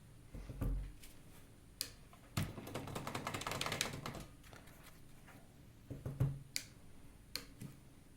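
Light clicks and taps from handling painting materials, with about a second and a half of rustling or scratching near the middle and a few more sharp clicks toward the end.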